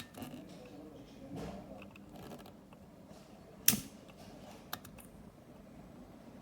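A sharp click a little past the middle and a lighter click about a second later, over faint handling noise in a small room.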